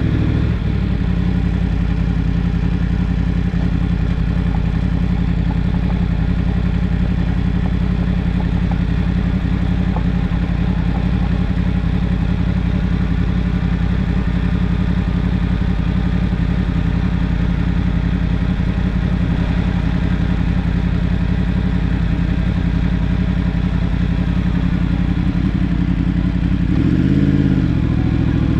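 Yamaha MT-10's crossplane inline-four engine running at a steady, unchanging pitch, with one brief rev up and back down near the end.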